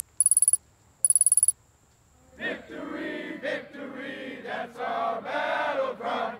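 Three short bursts of rapid, high-pitched electronic beeping, a typing sound effect for on-screen text, in the first second and a half. About two and a half seconds in, a group of voices starts chanting together.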